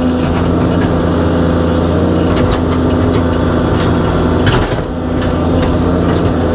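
Excavator's diesel engine and hydraulics running steadily under load, heard from inside the operator's cab, with a few knocks as the bucket digs, the loudest about four and a half seconds in.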